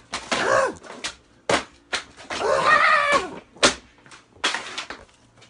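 Handling noise close to a phone's microphone as it is moved about: stretches of rustling broken by a few sharp knocks.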